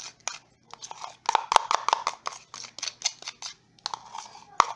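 A utensil scraping and knocking against a plastic container as thick mayonnaise dressing is spooned out of it: a quick, uneven run of clicks and scrapes, densest in the middle, with one sharper knock near the end.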